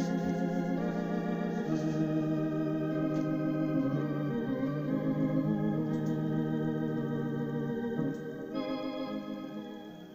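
Slow organ music: sustained chords held and changed every one to two seconds, fading out near the end.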